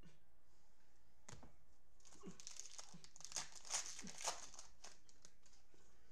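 Foil wrapper of a Donruss Optic football card pack crinkling and tearing as it is opened, with a run of sharp crackles in the middle.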